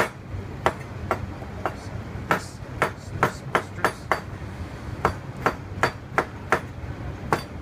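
Chef's knife slicing geoduck on a plastic cutting board: the blade taps the board with each stroke, about sixteen sharp knocks in an uneven rhythm of roughly two a second, with a short gap about halfway through.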